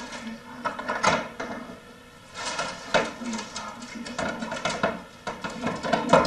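Hand staple gun driving staples through aluminum window screen into wood, a few sharp snaps spaced one to three seconds apart.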